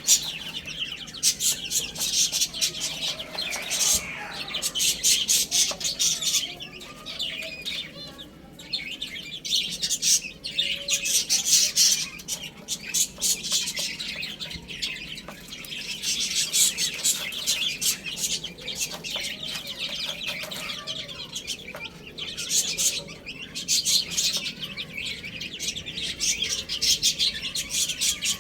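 A group of baby chicks peeping: many high, overlapping chirps, coming in busy clusters.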